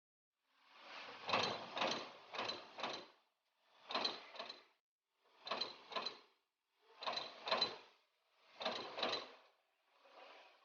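CNC turret punch press punching sheet metal in bursts of sharp hits: a run of several strikes at first, then groups of two or three strikes about every one and a half seconds, the last group weaker.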